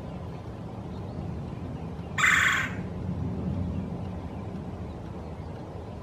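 Male red-bellied woodpecker giving a single rolling call about half a second long, a couple of seconds in. This is his courtship calling to the female from the nest box.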